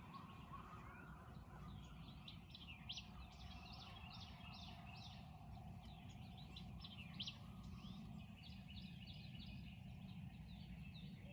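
Faint songbirds chirping, many short quick notes one after another, over a low steady background rumble.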